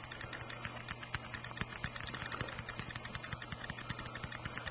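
Fingertips tapping rapidly on an iPod touch's touchscreen keyboard: quick, light, irregular clicks, several a second, as the keyboard keeps responding without freezing.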